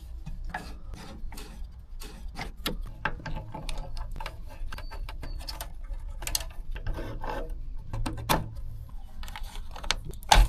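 Hand tools and metal fittings being worked on a gas water heater's control valve: irregular scraping, rubbing and clicking, with a few sharper knocks.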